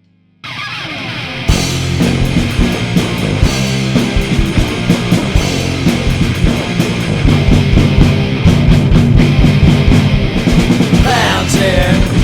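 Rock-and-roll band music: guitar and drum kit kick in suddenly about half a second in, with the full drum beat coming in about a second later and running on loud and steady.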